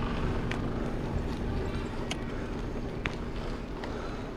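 Bicycle tyres rolling over a gravel path: a continuous crunching rumble, with short sharp ticks now and then from the stones.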